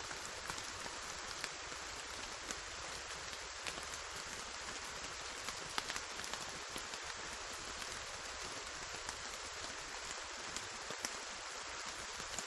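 Steady rainfall, a constant hiss of rain with many single drops pattering close by. No thunder is heard.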